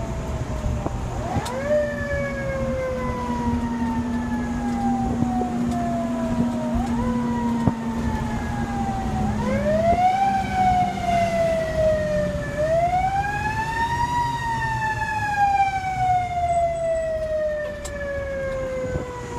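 A fire engine's siren, heard from inside the cab: it winds quickly up in pitch and then slowly falls away, four times, over the low running of the truck's engine.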